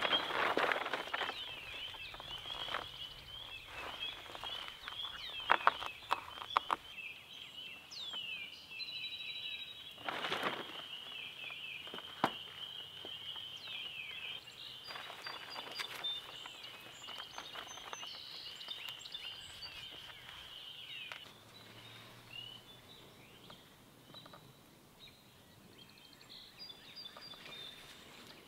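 Small birds chirping in a dense, continuous chorus that cuts off abruptly about three-quarters of the way through. Over it come bursts of rustling and crinkling from a reflective emergency tarp being handled, with a few sharp clicks around six seconds in.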